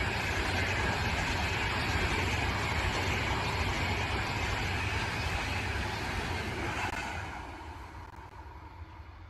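Passenger train coaches rushing past close by at speed: a loud, steady rumble and rush of wheels on rail that dies away about seven seconds in.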